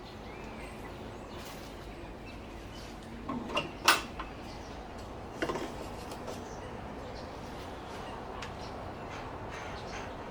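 A few sharp knocks and clinks over a steady background noise: a cluster about three and a half to four seconds in, the loudest just before four seconds, and one more about five and a half seconds in.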